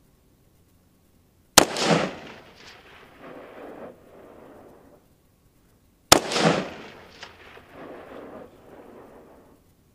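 Two shots from an ArmaLite AR-15 SPR Mod 1 rifle in 5.56, about four and a half seconds apart, each followed by a rolling echo that fades over about three seconds.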